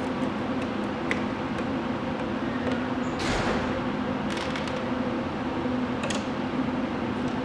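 Scattered clicks and short scrapes of hand-tool work on screws, over a steady low hum.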